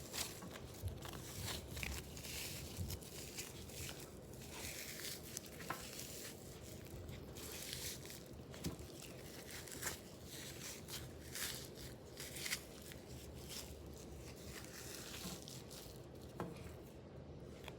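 Paper towel crinkling and rustling with scattered small cracks and crunches as hands squeeze and twist a frozen foam squishy. The squishy never gives a clear big crack: the attempt fails.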